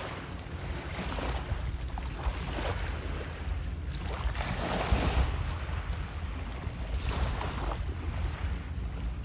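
Wind buffeting the microphone beside the sea: a steady low rumble with a few brief gusts, with no distinct engine or horn heard.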